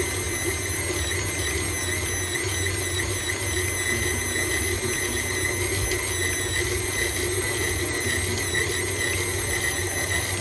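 KitchenAid Classic stand mixer's motor running steadily, its flat beater turning flour and water into dough, with a low hum and a constant whine.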